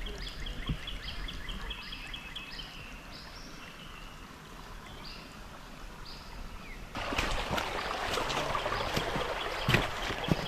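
Outdoor ambience: high chirping calls repeating several times a second over a faint steady hiss. About seven seconds in, a louder rushing noise comes in, with a few sharp knocks.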